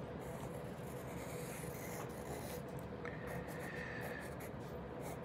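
HB graphite pencil scratching on notepad graph paper in short drawing strokes, faint, over a faint steady hum.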